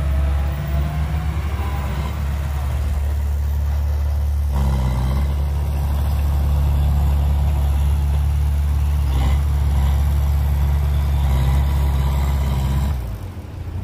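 Diesel engine of a loaded Hyundai 5-ton dump truck running steadily as it drives in and raises its tipper bed. The engine sound drops in level shortly before the end.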